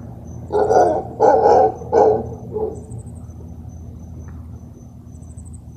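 Mantled howler monkey calling: a run of four loud barking calls in the first few seconds, the last one fainter, then stopping.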